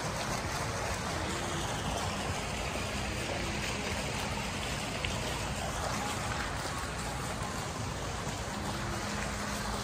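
Ornamental fountain jets splashing steadily into a shallow pool.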